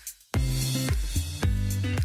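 Background music with drums and guitar playing a steady beat, resuming after a brief break about a third of a second in.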